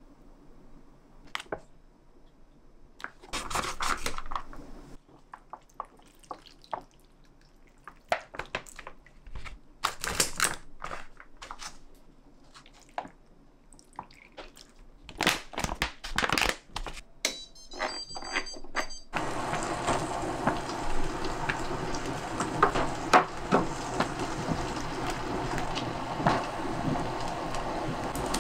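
Scattered clicks, taps and scrapes of a spoon and a sauce packet as seasoning paste goes onto the stew ingredients in the pot. A short run of high electronic beeps follows. About two-thirds of the way in, a steady bubbling with small pops begins: the pot of sundae jeongol (Korean blood-sausage hot pot) at a hard boil, boiling over.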